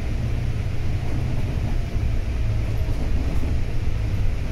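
Volvo B9TL double-decker bus on the move: a steady low rumble of its diesel engine and running gear.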